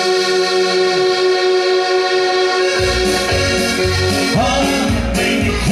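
Dance band music at a wedding reception: a long held chord, then bass and a steady beat come in about three seconds in.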